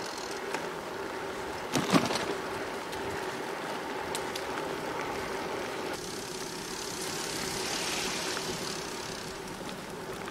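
Bicycle rolling along a paved path, heard from a camera mounted on the bike: steady tyre and wind noise with a faint steady hum, and a couple of sharp knocks about two seconds in.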